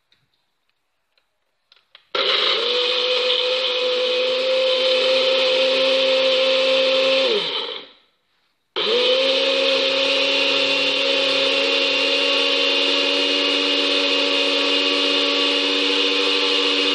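Small Cosmos electric blender chopping garlic, shallots and turmeric into a paste. After a few soft clicks its motor starts about two seconds in and runs steadily, then winds down to a stop with falling pitch. After a short pause it starts again and keeps running.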